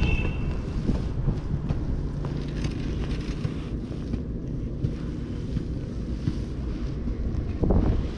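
Wind buffeting the microphone, a steady low rumble, with a few faint handling clicks and a louder thump near the end.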